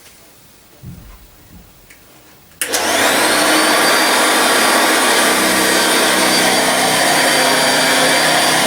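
A 1955 Hoover Junior 119 upright vacuum cleaner is switched on about two and a half seconds in, after a few small handling knocks. Its motor spins up with a brief rising whine, then runs steadily and smoothly on a new drive belt.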